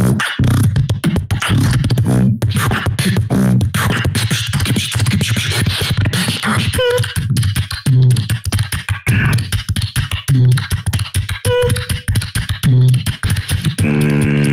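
Solo beatboxing into a microphone: a fast, dense rhythm of deep bass kicks and sharp clicks, with two short pitched whistle-like notes midway and a sustained buzzing bass tone starting near the end.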